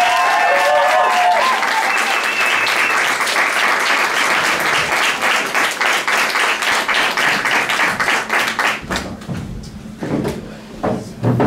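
Audience applauding, thinning out about nine seconds in, after which voices and a few knocks are heard.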